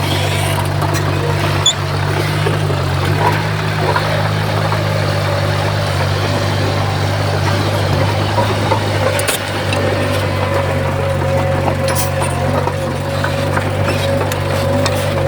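Crawler bulldozer's diesel engine running steadily at an even pitch, with a few brief clanks.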